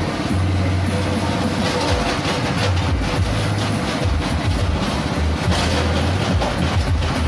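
Small petrol engine running a coconut-husk shredder, with husks being torn up as they are fed into the hopper: a steady engine drone under irregular crackling from the shredding.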